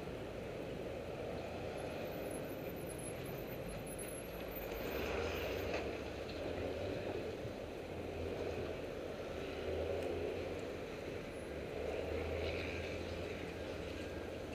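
City street traffic: a steady wash of motor vehicles, swelling louder three times as vehicles pass.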